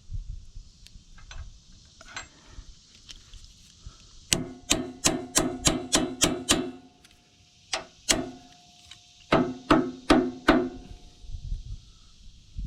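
Hammer striking a steel shear pin to drive it into the John Deere 260B backhoe's pin holes, each blow ringing metallically. About sixteen strikes come in three bursts, roughly four a second, with a short pause between bursts.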